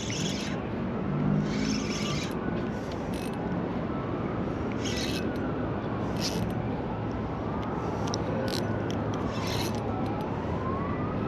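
A distant siren wailing, slowly rising and falling about every three seconds, faint over a steady hiss of outdoor noise, with several short hissing bursts mixed in.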